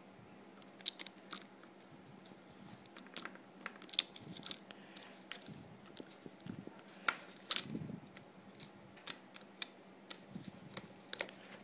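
Faint, irregular small clicks and taps of a plastic car key fob being handled as its back cover is refitted and screwed on with a jeweler's screwdriver.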